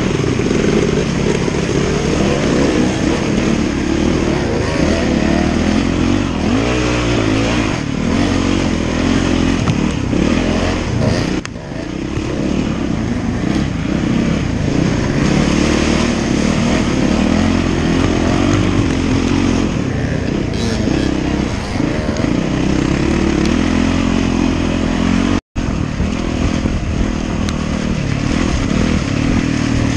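Off-road dirt bike engine running hard under load, its pitch rising and falling with the throttle as it climbs a muddy trail, heard close up from the rider's helmet camera. The sound dips briefly about eleven seconds in and cuts out for an instant near the end.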